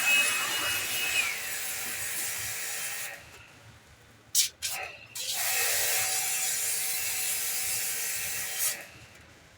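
Pressure washer jet spraying a bicycle chain in two long blasts of about three seconds each, with two short squirts between them, and a steady hum from the washer under the second blast.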